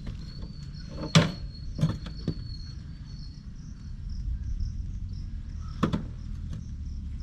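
A few sharp knocks and clicks, the loudest about a second in and another near six seconds, over insects calling with a steady high chirping and a low rumble.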